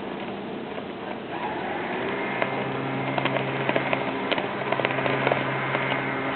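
A low, steady machine hum sets in about two seconds in, over a noisy background, with many scattered clicks and knocks on top of it.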